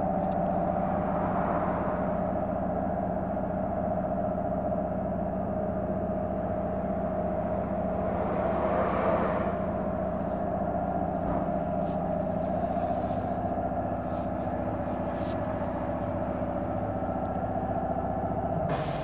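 Steady tyre and road drone from Bridgestone 205/65R16 light-truck tyres rolling at a constant speed, with a low hum and a mid-pitched tread drone that hold steady and swell slightly twice.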